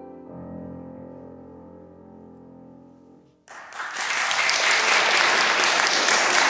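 A Steinway grand piano's closing low chord, struck just after the start, rings and slowly fades. About halfway through, audience applause breaks out suddenly and carries on loudly.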